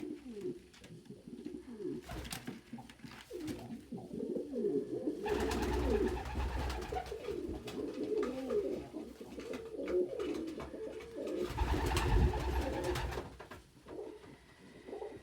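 Domestic pigeons cooing over and over in short gliding phrases. Two longer bursts of rustling noise, about five and twelve seconds in, rise above the cooing.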